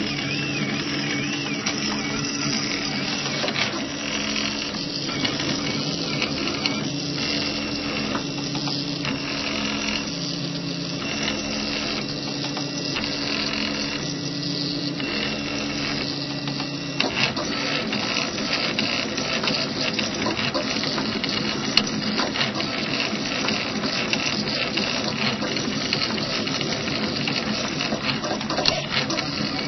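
RepRapPro Mendel 3D printer running a print: its stepper motors whine in steady tones that shift with each move of the print head, with small clicks. The tone pattern changes a little over halfway through as the moves change.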